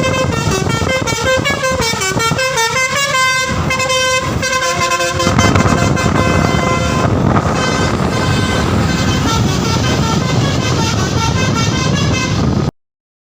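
Telolet basuri V3 musical bus horn playing a tune of several horn tones that step up and down in pitch. About five seconds in, a loud rushing noise joins beneath the tones. The sound cuts off suddenly near the end.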